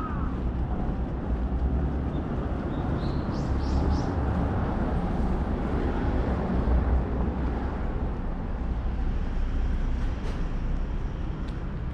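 A steady low outdoor rumble that swells and dips a little, with a few short high chirps about three to four seconds in and light clicks near the end.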